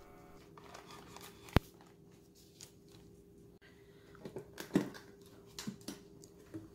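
Wooden case with metal latches being handled: a single sharp click, then a run of small clicks and knocks as the latches are worked and the lid is lifted, over a faint steady hum.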